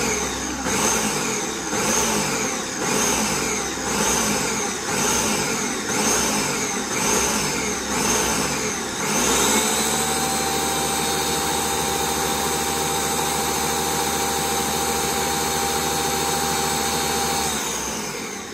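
Ninja countertop blender whipping raw eggs. Its motor surges and eases about once a second for the first half, then runs steadily at high speed and winds down near the end.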